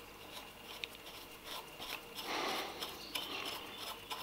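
Faint small clicks and rubbing of the Royal Enfield Interceptor 650's clutch lever being worked loose in its perch on the handlebar, with a brief louder rub a little over two seconds in.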